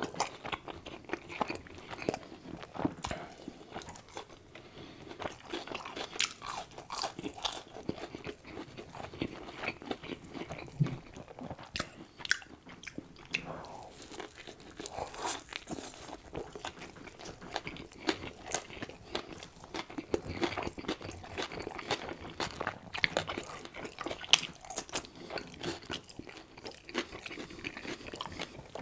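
Close-miked ASMR eating of a cheeseburger: biting, chewing and crunching, with many irregular sharp mouth clicks and smacks.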